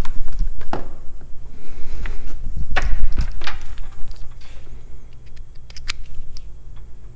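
Handling noises of several knocks, clicks and rattles as a digital multimeter is set down on the engine's plastic air cleaner cover and its test leads are moved about. The knocks are thickest in the first three seconds or so, then thin out to a few scattered ticks.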